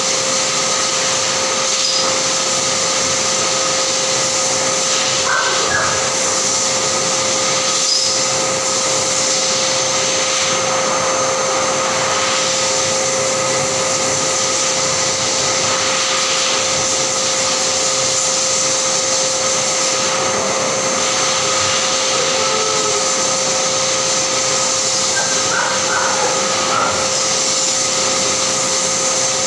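An electric blower motor running steadily, giving a constant hum with a high whine over a rush of air.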